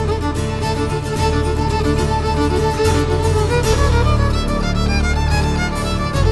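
Instrumental passage of a Polish folk song arrangement: a violin plays a sustained melody over bass guitar and guitar accompaniment.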